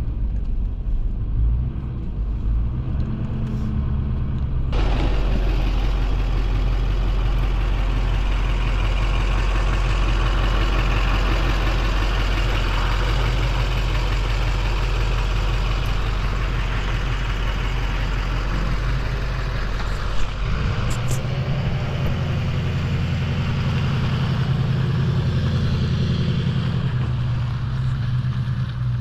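Pickup truck driving on a gravel road, towing an empty flatbed trailer: a steady engine drone under loud tyre and road noise. The sound grows louder and rougher about five seconds in, and the engine drone shifts about twenty seconds in.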